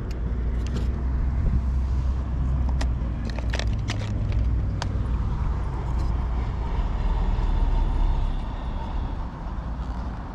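Steady low outdoor rumble of road traffic mixed with wind on the microphone, swelling twice, with a few short sharp clicks in the first half.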